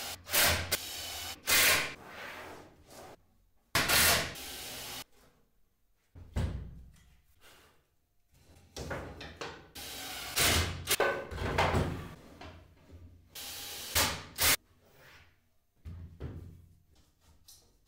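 Cordless drill driving screws into wooden drawer box panels in several short runs, between sharp knocks and clatter of the boards being handled.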